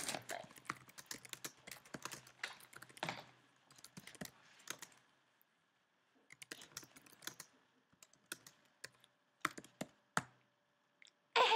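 Typing on a computer keyboard: irregular key clicks in quick runs, with a pause of a second or two about halfway through.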